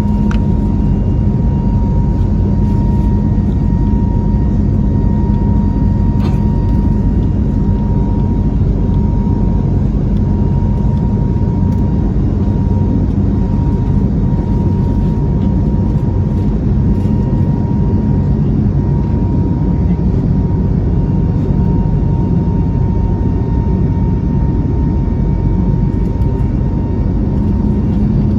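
Airbus A321neo jet engines heard from inside the passenger cabin: a loud, steady rumble with a steady high hum over it.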